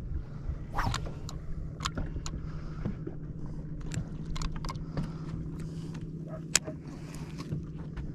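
Steady hum of a boat's electric trolling motor running, with scattered clicks and knocks on board.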